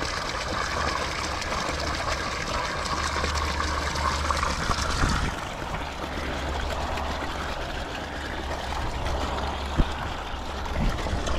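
Water pouring from a pipe into a small pond, a steady splashing and trickling, with a low steady hum underneath. Hands move through the shallow water for the first few seconds.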